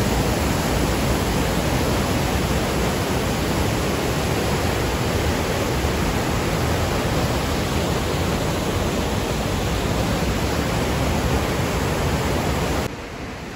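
Johnston Creek's whitewater rapids rushing through a narrow rock canyon: a loud, steady rush of water. About 13 seconds in, it drops suddenly to a quieter rush.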